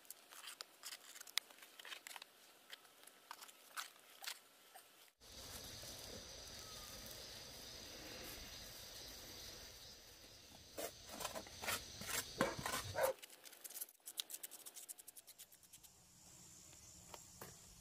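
Wet cement mortar being pressed and scraped onto a stone wall while plastering, heard as scattered faint scrapes and clicks, with a denser run of them near the end.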